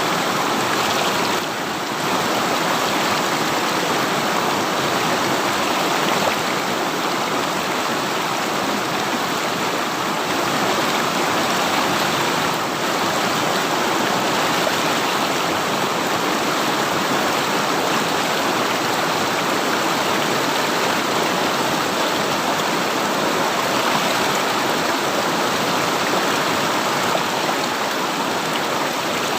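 River water rushing and gurgling over rocks, a steady full flow.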